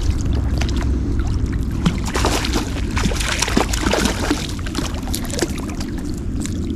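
Hooked rainbow trout thrashing and splashing at the surface while being fought in close, a run of irregular splashes over a steady low rumble of moving water.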